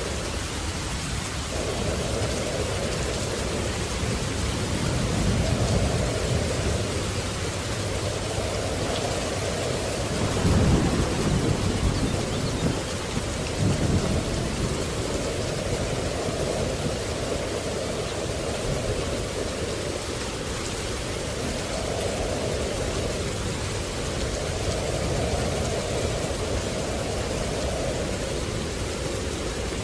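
Steady heavy rain with thunder rumbling several times; the loudest rolls come about ten and fourteen seconds in.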